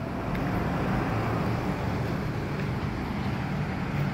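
Road traffic: a car drives past close by over a steady low engine hum.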